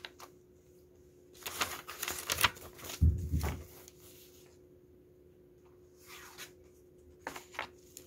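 Paper cards being handled and slid against each other, rustling in short bursts, with a soft thump about three seconds in and a few lighter rustles near the end as one card is swapped for another.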